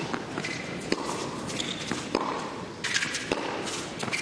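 Tennis rally: a ball struck by rackets with sharp pops about once a second, with short high squeaks between shots over a steady crowd hush.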